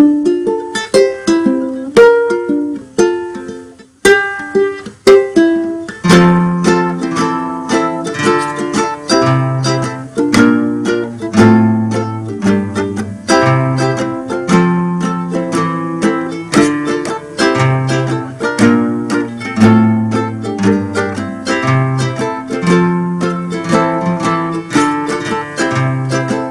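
Instrumental outro music on plucked strings: a sparse picked melody for about the first six seconds, then a bass line and fuller accompaniment join in.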